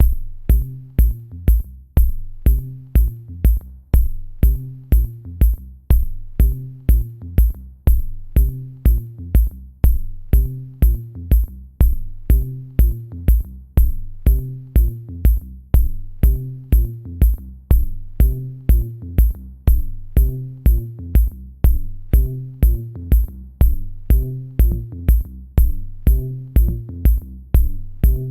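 Electronic instrumental music with a steady drum-machine beat about twice a second, a bass line and a short repeating melody.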